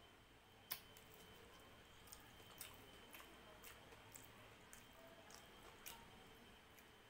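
Faint wet eating sounds of rice and dal eaten by hand: small squishy clicks from chewing and from fingers mixing the rice, scattered irregularly, with one sharper click about a second in.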